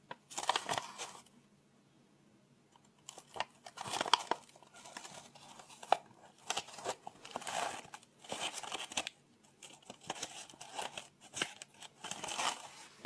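Close-up rustling and crinkling of paper, in irregular bursts with a few sharp clicks.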